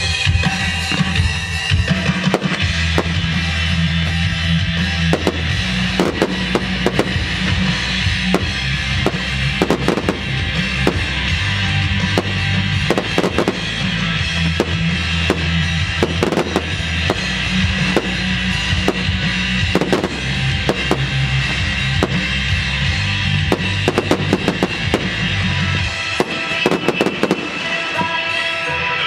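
Aerial firework shells bursting in quick, irregular succession with crackling stars, over loud music with a heavy bass line. The bass drops out near the end while the bangs go on.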